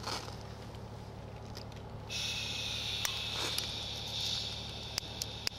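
Handheld gas lighter: from about two seconds in, gas hisses steadily while the igniter clicks sharply several times. The lighter has not yet lit.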